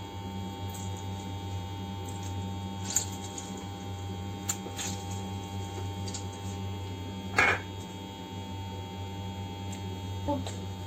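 Steady electrical hum with a few faint clicks and one louder brief rustle-like sound about seven and a half seconds in, from hands handling ingredients and utensils.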